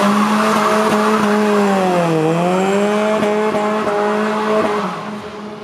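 Four-cylinder 2.0-litre Nissan Silvia engine in a Lada 2101, running hard at high revs under full acceleration. About two seconds in the pitch dips briefly and climbs back, as at a quick gear change. It then holds steady and fades near the end.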